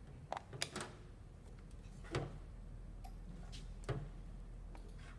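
Scattered sharp clicks and light knocks of the hand mixer's plastic parts being handled and pried at during disassembly, about six in all, the loudest about two seconds in and near four seconds in.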